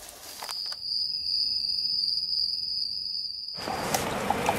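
A steady, high-pitched insect trill held for about three seconds. Outdoor background noise comes in just before it stops.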